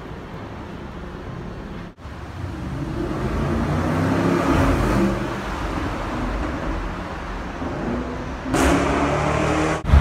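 Car traffic in a road tunnel: the engine and tyre noise swells as a car approaches and passes, then eases off. The sound drops out briefly about two seconds in and jumps up suddenly near the end.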